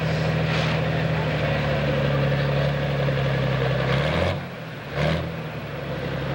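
Pro Stock pulling tractor's turbocharged diesel engine running at full throttle under load as it drags the weight sled. About four seconds in it drops off briefly, surges once near the five-second mark, then runs steady again.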